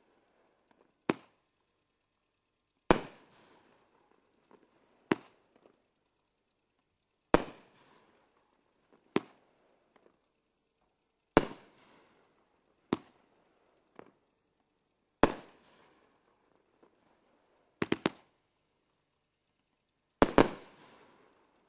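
Mammoth Brocade firework cake firing aerial shells: sharp bangs about every two seconds, alternating softer shots with louder, echoing bursts. Near the end three shots come in quick succession, followed by a loud double bang.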